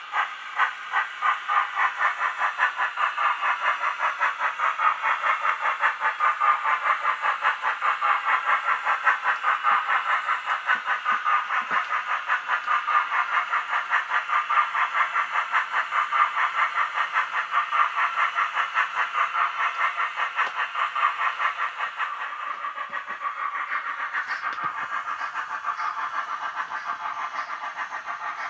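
Steam-chuff sound of a Roco HO model of the Royal Bavarian S 3/6 steam locomotive: a rhythmic chuff with hiss that quickens over the first couple of seconds into a fast, steady beat and grows softer near the end.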